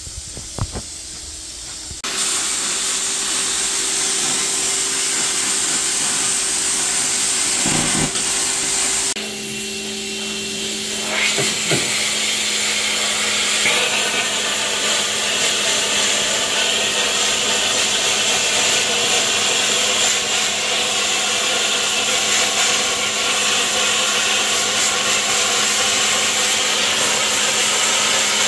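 Plasma cutter cutting through a car's steel rear floor from underneath: a loud, steady hiss of the arc and air stream that starts about two seconds in, with a brief dip and change in tone about nine seconds in.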